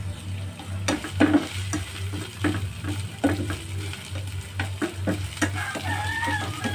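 Sliced onion and minced garlic sautéing in hot oil in a pan, with a light sizzle and irregular scrapes and taps of a utensil against the pan as they are stirred. This is the early stage of sautéing, while the onion softens.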